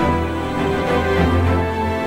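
Background music with a steady bass line and sustained chords.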